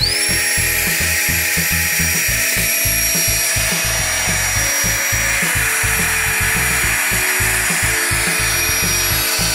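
Flextail Tiny Pump 2X's small electric air-pump motor starting up with a whine that rises quickly in pitch. It then runs steadily with a high whine and a rush of air as it inflates a vinyl pool float.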